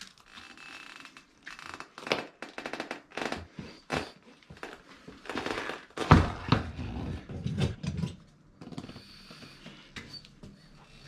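Metal tools and parts scraping and clicking against a motorcycle wheel rim during tire removal, with a spell of heavier thumps and rubbing about six seconds in.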